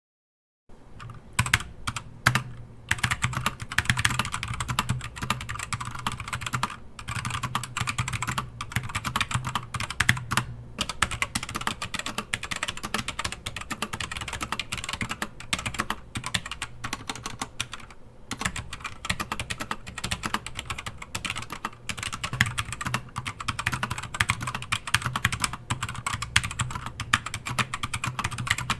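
Fast, continuous typing on a Keychron K4 mechanical keyboard with LK optical box switches, O-rings fitted under the letter keycaps, starting about a second in with a few brief pauses. The O-rings don't reach the top of the switch, so the keys still bottom out, and the clacking sounds only a little softer.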